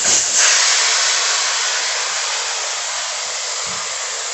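Air hissing out of a motorcycle tyre as it is let down, loud at first and slowly fading, ahead of breaking the bead.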